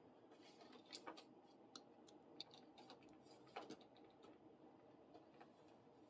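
Near silence with a few faint, scattered clicks and taps from a plastic action figure being handled and posed.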